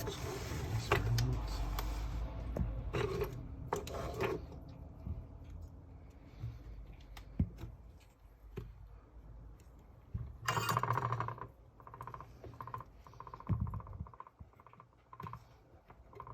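Small hard parts and a tool clicking and clinking against each other and a work surface, with some rustling handling noise, during hands-on work replacing a Mavic Mini drone propeller.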